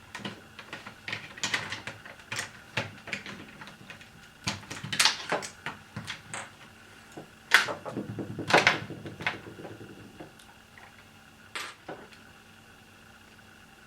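Hands and tools working on the open plastic housing of a box fan: irregular clicks, knocks and light rattles, with a few sharper clicks about seven and a half to nine seconds in and again near the end.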